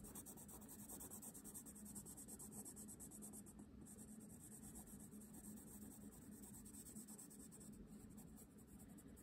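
Faint scratching of a coloured pencil on sketchbook paper, shading in quick repeated strokes.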